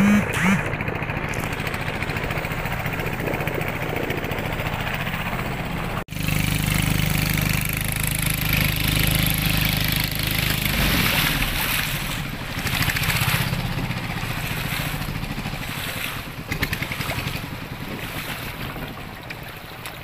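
An engine running steadily, with an abrupt cut about six seconds in after which it is louder, then slowly getting quieter towards the end.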